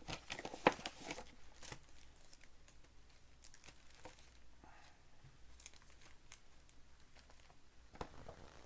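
Plastic wrapping on a trading-card box crinkling and tearing as the box is opened by hand. There is a sharp snap under a second in, then lighter scattered rustles and clicks.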